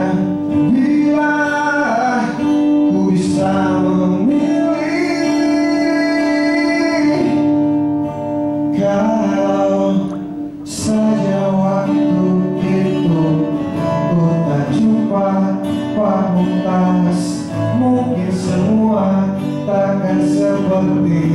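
Male vocalist singing a slow pop song into a handheld microphone, amplified through the hall's sound system over instrumental backing, with long held notes.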